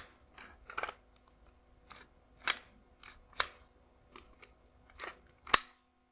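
Irregular sharp clicks and knocks, about a dozen, of a Novritsch SSP-1 airsoft pistol's slide being worked onto its frame, the loudest a little over five seconds in.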